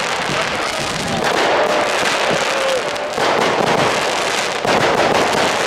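Fireworks crackling: a dense, unbroken hail of small pops from crackling stars, growing louder about a second in and again about three seconds in, with a faint whistle in the middle.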